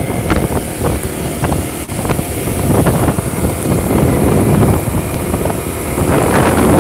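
Wind buffeting the phone's microphone on a moving motor scooter, a loud, steady rush of noise.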